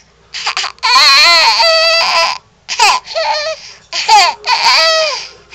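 A person wheeze-laughing: high-pitched, squealing breaths in four loud bouts, each rising and falling in pitch.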